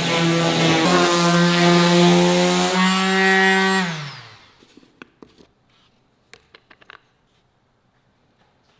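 Electric woodworking power tool running at steady speed with a high whine and hiss, then switched off and winding down in pitch to a stop about four seconds in. A few light taps and clicks of wood handling follow.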